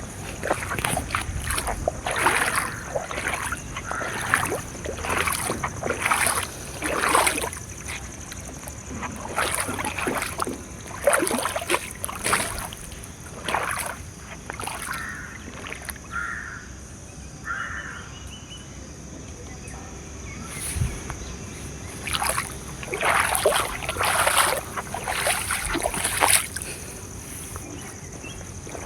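Repeated irregular splashing and sloshing of water, with faint voices.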